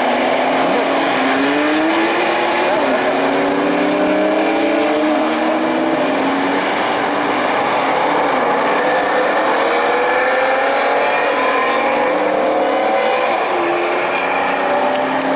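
Several Porsche 911 flat-six engines accelerating together, their notes overlapping and each climbing in pitch, dropping back at a gear change and climbing again.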